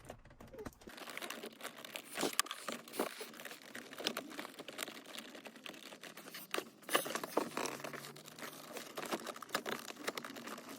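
Dense crinkling and rustling with many small clicks and taps as car-radio mounting parts are worked by hand into the dashboard radio slot.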